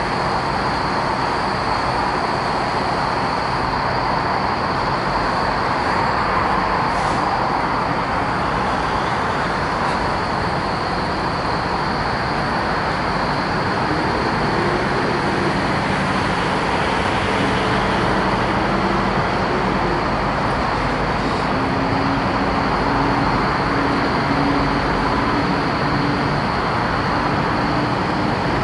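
Steady drone of semi-truck diesel engines idling and running around a truck-stop lot. Through the second half, a few low engine tones shift in pitch over the general rumble.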